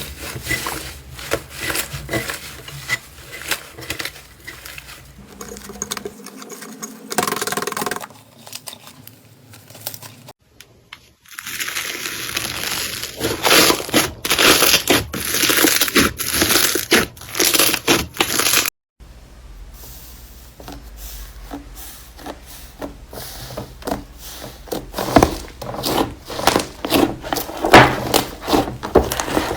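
Slime being squished, pressed and stretched by hand, giving dense crackling, popping clicks and tearing sounds. The sound breaks off abruptly twice where one clip cuts to the next.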